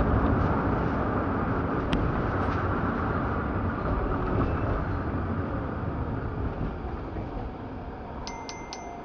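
Car driving, heard from inside the cabin: a steady road and engine rumble that gradually dies down as the car slows. Near the end, a short electronic chime of three quick pings.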